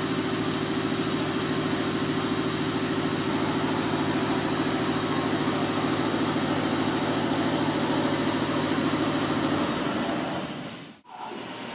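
1998 OKK PCV-55 CNC vertical mill running: a steady machine hum with a thin high whine above it. It fades about ten seconds in and breaks off briefly near the end.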